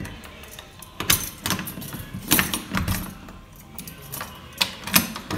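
Rattling, jingling handling noise with about half a dozen sharp clicks and knocks scattered through it.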